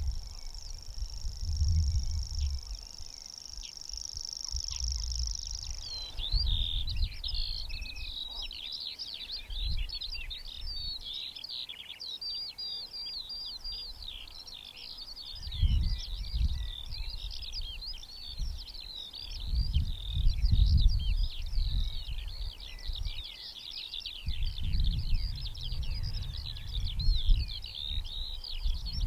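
Grasshopper warbler reeling: a steady, high-pitched, insect-like trill that stops about six seconds in. Another songbird then sings a fast, varied, chattering song, and low rumbles of wind noise come and go throughout.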